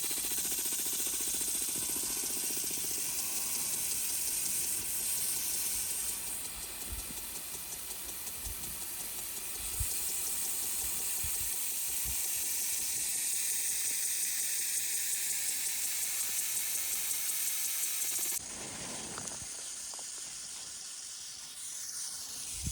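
Water spraying from a hose in a steady hiss that cuts off suddenly about 18 seconds in, with a few light knocks partway through.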